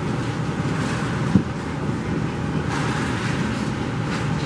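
Steady rushing background noise, with one short, sharp sound about a second and a half in.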